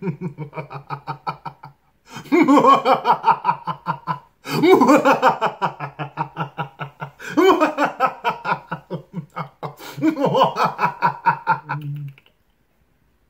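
A man laughing hard, in about five long bouts of rapid pulsed 'ha-ha-ha' with short breaths in between. The laughing stops about a second before the end.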